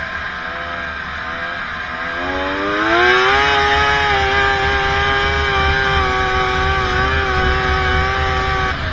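Snowmobile engine heard from on the sled, revving up about two to three seconds in and then holding a steady high pitch at speed, with a low rumble underneath; the pitch drops away just before the end.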